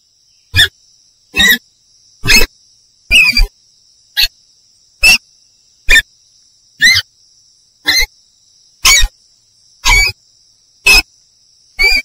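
Mongoose calls: short, sharp honking yelps repeated about once a second, over a faint steady high-pitched hum.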